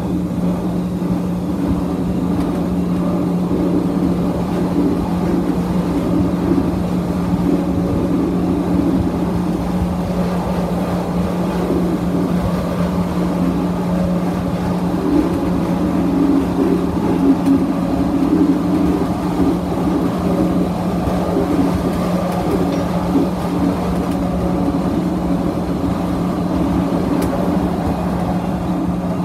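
Inside a CTA 2600-series rapid-transit railcar running at speed: steady rumble of the wheels on the rails with a constant low hum underneath.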